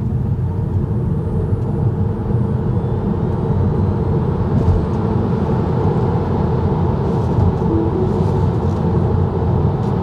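Cabin noise of a Tesla Model 3 Standard Range Plus under hard acceleration to highway speed on studless winter tyres: a steady low tyre and road rumble, with a faint whine rising in pitch over the first few seconds.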